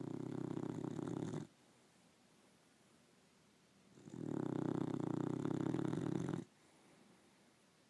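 Snoring in slow, regular breaths. One snore ends about a second and a half in, and another runs from about four seconds in to about six and a half seconds in.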